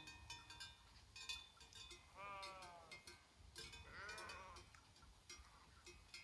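Sheep bleating twice, one call about two seconds in and another about four seconds in, amid the faint, repeated clinking of bells worn by the grazing flock.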